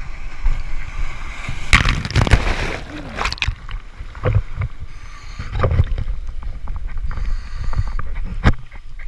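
Breaking surf washing over a camera held at the water surface: a loud rush of churning whitewater about two seconds in, then splashing and gurgling foam with a few sharp knocks as the camera is tossed about.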